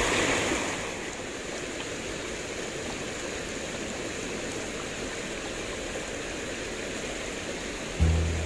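Shallow river rushing over rocks in small rapids, a steady hiss of running water. Music with low bass notes comes in suddenly near the end.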